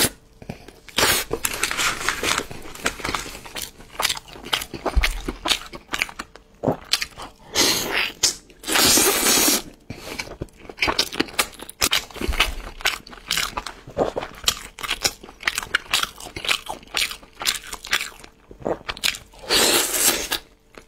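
A person eating roast chicken close to the microphone: bites and chewing in a quick, uneven run of clicks, with a few longer, louder stretches of noise about nine seconds in and near the end.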